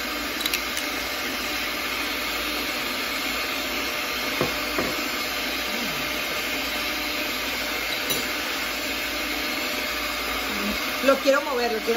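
Sunbeam stand mixer's electric motor running steadily on its lowest speed, its beaters whisking eggs and sour cream in a stainless steel bowl. A few sharp knocks and clicks come near the end.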